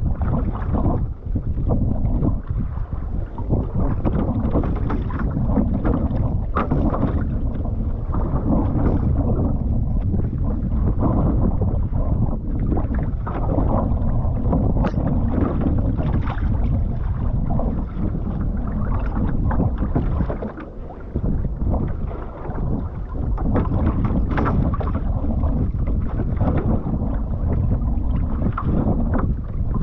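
Wind buffeting the microphone over the wash of water along a one-person outrigger canoe being paddled, with short splashes from the paddle strokes.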